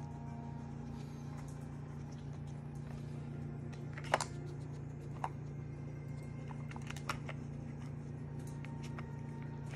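A plastic dog treat-puzzle toy clacking as a Yorkie puppy noses and flips its red dome covers: a few sharp clicks, the loudest about four seconds in. A steady low hum lies under them.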